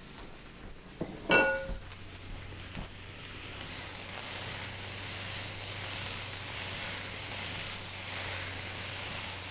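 Bean sprouts, bok choy, carrot and snow peas stir-frying in an electric nonstick wok: a soft, steady sizzle that builds over the first few seconds as the spatula tosses the vegetables. A brief clink rings out about a second in.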